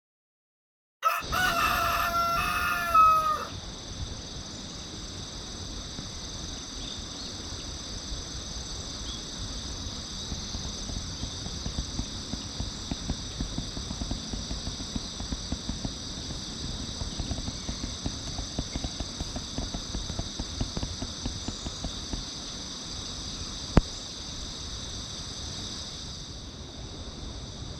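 A rooster crows once, loud, starting about a second in and lasting about two seconds. After it comes a steady high-pitched background hiss with faint irregular crackling, and one sharp click near the end.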